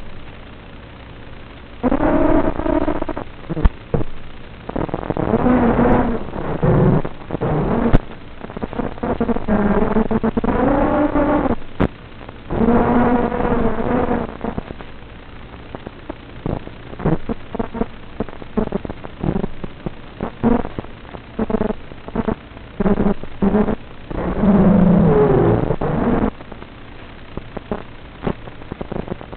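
FPV racing quadcopter's brushless motors revving in repeated throttle bursts, their whine rising and falling in pitch, some bursts lasting a second or two and many short blips, over a steady hiss.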